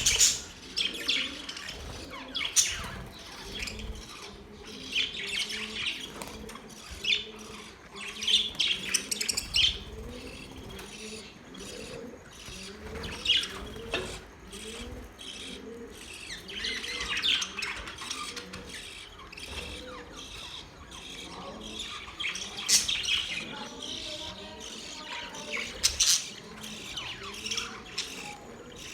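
A flock of budgerigars chirping and chattering in quick, irregular bursts of high calls, with an occasional squawk.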